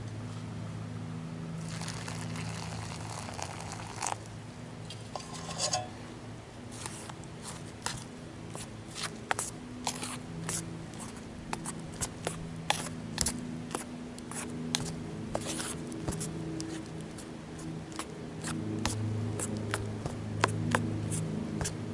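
A plastic spork stirring a soft mix in a metal camp pan, clicking and scraping against the pan many times, over a steady low hum.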